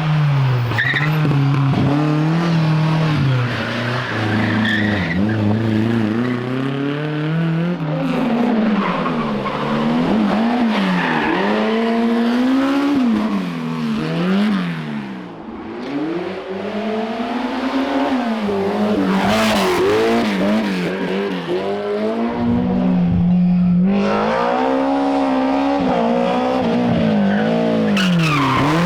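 Historic rally car engines revving hard on a special stage, pitch climbing and dropping with each throttle blip and gear change, several cars in turn.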